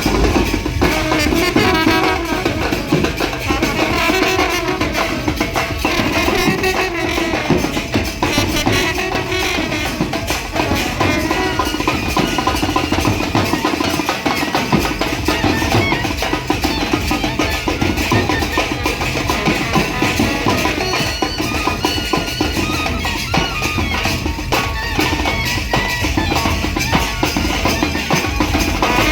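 An Indian brass band playing a tune over steady drumming, loud and continuous.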